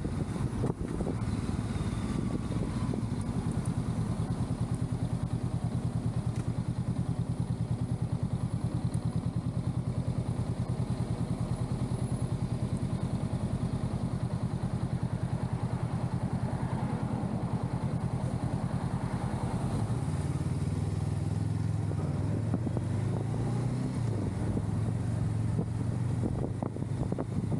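Honda Rebel 500 parallel-twin engine heard from the rider's seat, running at a steady low beat while stopped in traffic, then growing louder and stepping up in pitch as it pulls away about twenty seconds in.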